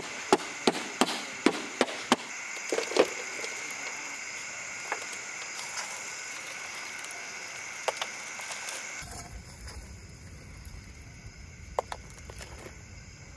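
Sharp cracks and taps come about three a second for the first three seconds, then a few scattered clicks as glowing wood embers are raked from under a biryani pot and shovelled onto its metal lid for dum cooking. A steady high hiss runs underneath, giving way to a low rumble after about nine seconds.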